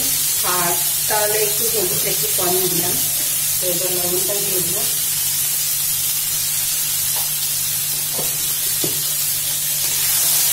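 Diced potatoes and eggplant sizzling in hot oil in a metal kadai, a steady hiss, with a few faint taps of the steel spatula; the spatula starts stirring near the end. A voice talks during the first half.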